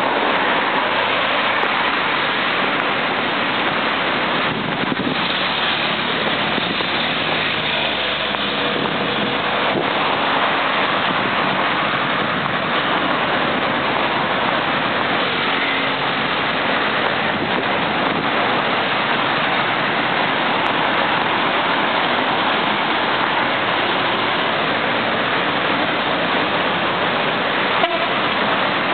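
Steady road traffic noise from cars and vans on a busy multi-lane city road, a dense even hiss of tyres and engines with one small click near the end.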